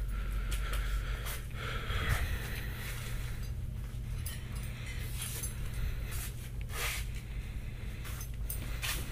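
Steady low hum of a store interior, with scattered rustles and light knocks from a handheld camera moving along the shelves.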